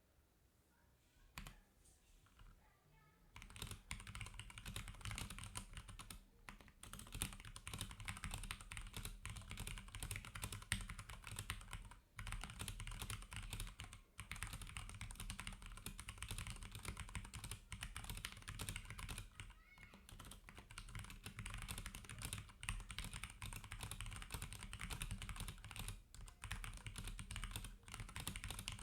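Akko 3068 mechanical keyboard with Cherry MX Brown tactile switches in a steel plate and PBT dye-sub keycaps, typed on in fast continuous keystrokes. The typing starts about three and a half seconds in, after a single click, and pauses briefly twice.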